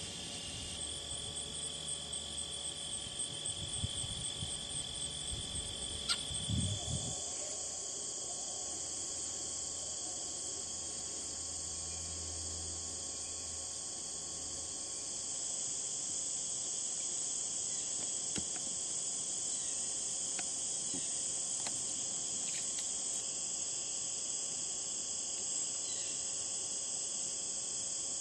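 Steady, high-pitched late-summer insect chorus of crickets and katydids in a marsh, growing louder about halfway through. A low rumble with a few bumps sits under it in the first half.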